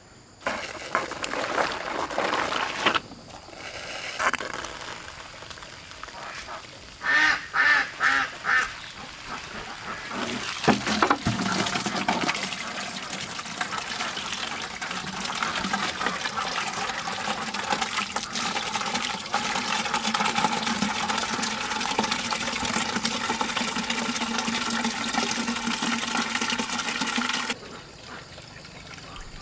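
Water running and splashing steadily, then cutting off abruptly near the end. About a third of the way in come four short, loud pitched sounds in quick succession.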